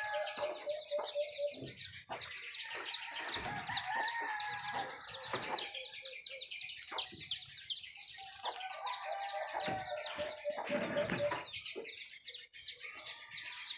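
Birds calling: a steady chorus of short, high, falling chirps, with bursts of low, rapid clucking notes near the start and again about eleven seconds in.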